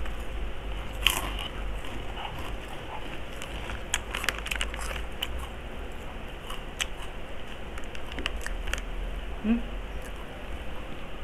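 Crunchy chicharon pork rinds being bitten and chewed close to the microphone, a run of scattered sharp crackles, densest about a second in and again around four to five seconds in.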